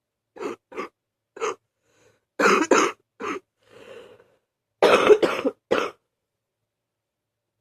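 A sick person's coughing fit on waking: three short coughs, then two harder bunches of several coughs each, with single coughs and a faint breath between. The fit stops about six seconds in.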